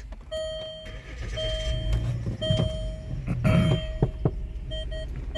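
An electronic warning chime from a Land Rover LR2 (Freelander 2). It sounds about once a second, each tone held for most of a second, then gives two quick short chimes near the end. A couple of sharp clicks come about four seconds in, over the low hum of the car running.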